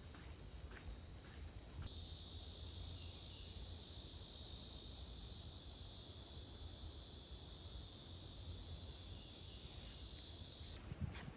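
A steady, high-pitched insect drone that starts suddenly about two seconds in and cuts off sharply near the end, over a low rumble.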